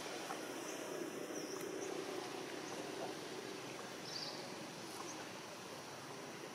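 Outdoor ambience: a steady hiss with a few short, high-pitched animal calls in the first two seconds and another about four seconds in.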